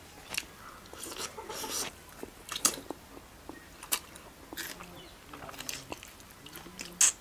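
Close-up eating sounds: a person chewing, with irregular wet clicks and lip smacks, the loudest smack near the end.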